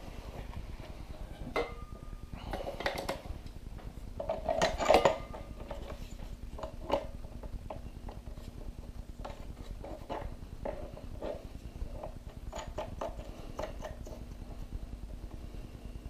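Knocks, clicks and clatter from handling a Flashpoint Rovelight RL-600B strobe head and fitting it onto a metal light stand, loudest about four to five seconds in, then a run of small clicks as it is adjusted on the mount.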